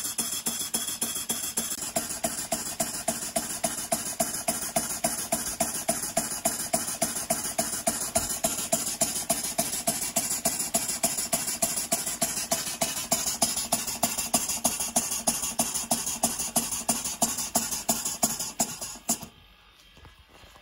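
Vertical model steam engine of Stevens Model Dockyard type running on compressed air: an even, rapid puffing exhaust at about four beats a second over a steady hiss, the wheezing that the owner says comes with very heavy air consumption. The puffing stops abruptly about a second before the end.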